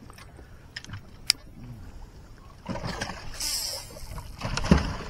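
A rod-and-reel cast from a fishing boat: a sharp click about a second in, then swishing noise as the line goes out, and a louder splash near the end.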